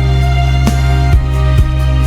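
Cinematic orchestral music: held bass notes under sustained higher tones, with the chord shifting a few times.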